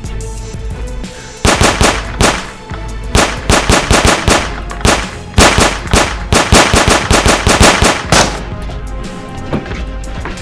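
Several bursts of rapid automatic gunfire between about a second and a half and eight seconds in, over background music.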